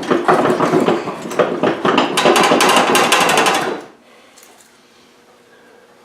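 Rapid metallic clattering from tool work on a tractor, many knocks a second, loud for about four seconds and then cutting off suddenly.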